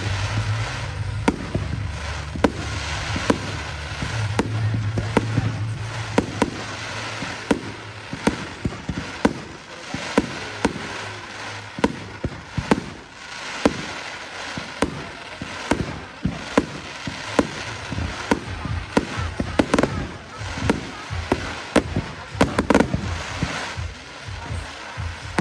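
Firework display: many sharp bangs and pops going off at irregular intervals, several a second at times, over a continuous haze of crackle and background noise.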